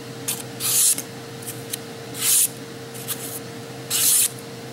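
Sharp kitchen knife slicing through a sheet of paper in a sharpness test: short crisp swishes, three main strokes about a second and a half apart with fainter ones between. A faint steady hum underneath.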